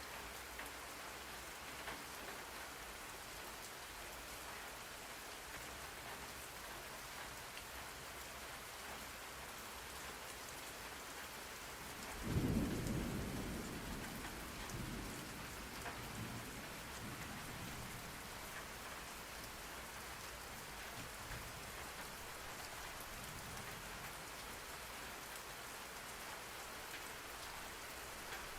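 Steady rain falling, with a single roll of thunder about twelve seconds in that starts suddenly as the loudest sound and rumbles away over a few seconds.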